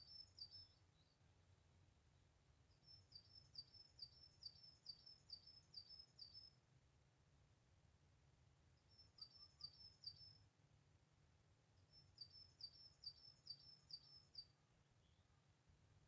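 A bird singing faintly in four runs of quick, evenly repeated high notes, about two to three notes a second, the longest run lasting nearly four seconds.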